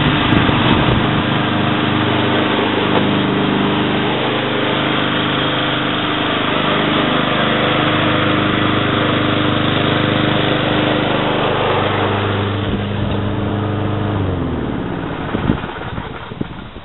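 Ariens Blade Runner self-propelled lawn mower's Kohler Courage 173cc engine running steadily at mowing speed, then slowing with a falling pitch and fading out near the end, with a couple of knocks.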